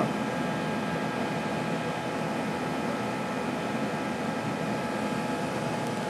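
Steady whirr and hiss of a running diesel air heater with its blower and burner going, holding an even level with a few faint steady hum tones.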